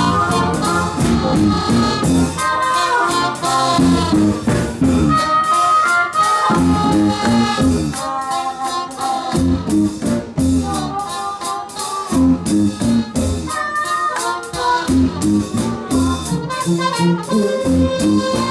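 A live band playing an up-tempo number with a steady drum beat.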